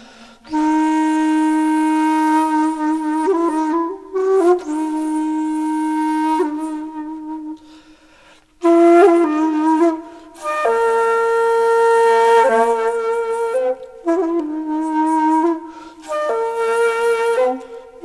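Background music: a flute-like wind instrument playing a slow melody of long held notes, in phrases broken by short pauses.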